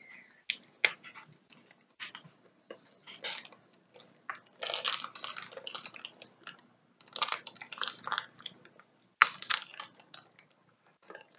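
Crunchy chewing of a milk chocolate-coated biscuit bar with hazelnuts and rice crisps, hard from being chilled in the refrigerator. The crunches come in irregular clusters, loudest about five, seven and nine seconds in.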